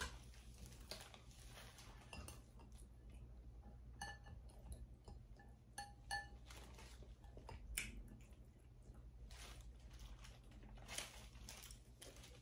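Faint eating sounds: quiet chewing and light clinks against a glass bowl, with a few short ringing clinks about four to six seconds in.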